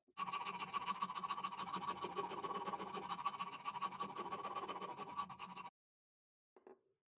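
Steel rasp shaping an oak hammer-handle blank clamped in a vise: continuous fast scraping strokes that stop abruptly a little before the end, followed by a brief tap.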